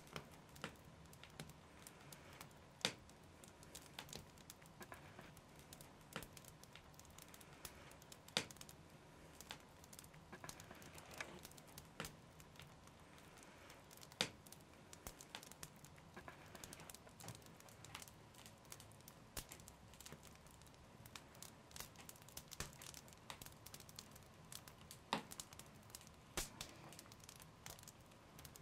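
Faint handling sounds from hands working on a wooden bow limb: scattered small clicks and crackles, with a few sharper ticks every several seconds, over a quiet room hum.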